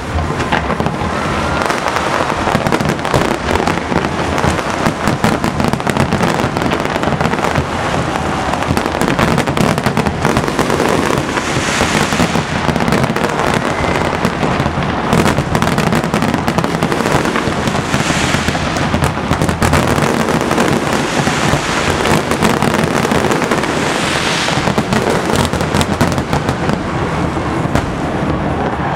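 Finale barrage of aerial firework shells bursting without a break, many bangs overlapping, with swells of high crackling about halfway through and twice more later.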